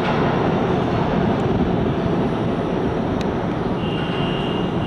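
R160 subway train rumbling steadily as it pulls away down the tunnel. A thin, high, steady whine comes in near the end.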